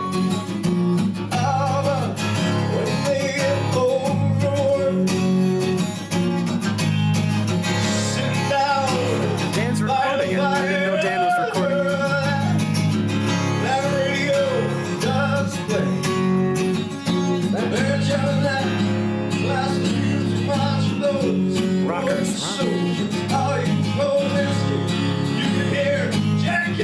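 A live band playing a guitar-led rock song, steady and continuous, with no words sung in this stretch.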